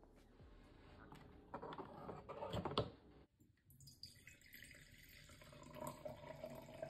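Red wine poured from a bottle into a stemmed glass, liquid splashing into the glass. Before that, irregular handling clicks and rustles break off suddenly about three seconds in.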